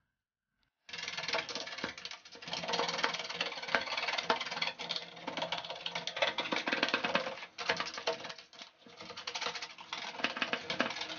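A stiff brush scrubbing quickly over the dusty metal case and fan grille of a desktop computer: a dense run of fast, scratchy strokes that starts about a second in and keeps going.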